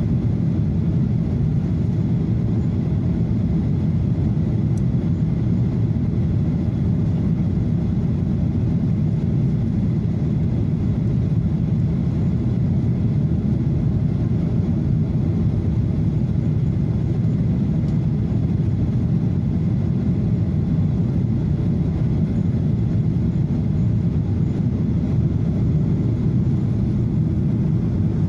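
Steady low roar of a Boeing 737-800's engines and rushing air, heard inside the cabin beside the wing while the jet is low on approach, with a faint steady whine above it.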